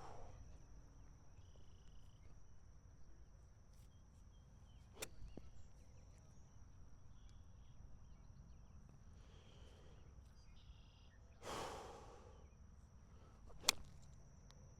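Quiet outdoor background with a faint steady high insect drone, broken by a short whoosh and two sharp clicks, one about five seconds in and a louder one near the end, as a golf shot with a 7-iron is played.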